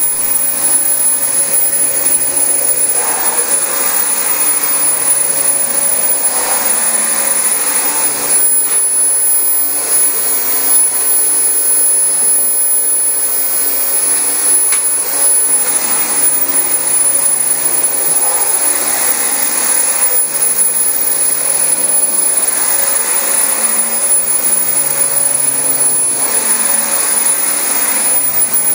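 Dyson DC25 upright vacuum cleaner running steadily on thick new carpet, its motor and brush bar giving a constant rushing noise with a thin high whine.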